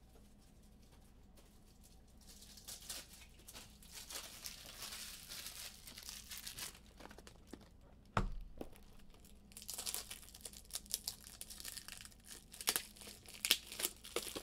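Plastic packaging crinkling and tearing as it is handled and opened, starting about two seconds in. There is a single knock about eight seconds in.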